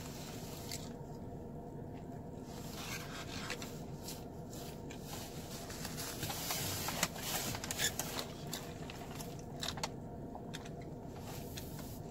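Light rustling and scraping of paper food packaging while eating, over a steady low hum inside a car.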